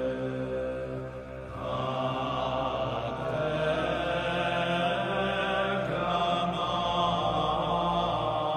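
Music of long, held, droning tones like a chant. It swells and fills out a little under two seconds in.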